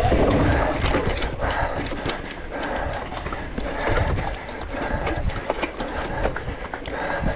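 Rockrider mountain bike rattling over rough ground: a quick, irregular run of clicks and knocks from the frame, chain and tyres, over low wind rumble on the camera's microphone.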